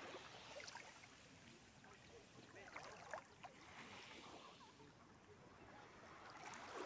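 Near silence: faint lapping of calm sea water at the shoreline, with a few soft ticks and one brief tap about three seconds in.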